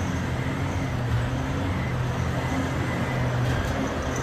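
Caterpillar 775E off-highway haul truck's diesel engine running steadily as the truck moves forward slowly on the quarry floor.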